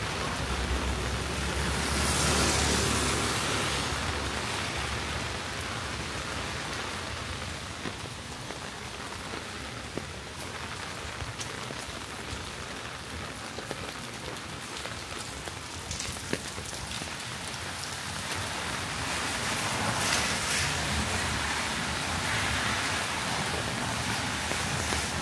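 Steady rain falling on a city street, swelling louder twice, about two seconds in and again near the end, with a few sharp drips.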